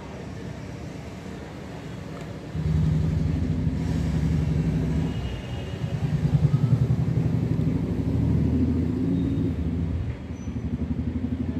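A motor vehicle engine running, with a low pulsing sound that gets louder about two and a half seconds in.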